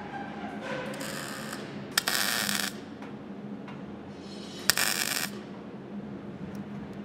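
Welding torch firing in two short bursts about two and a half seconds apart, each well under a second long and starting with a sharp snap, over a steady background hum.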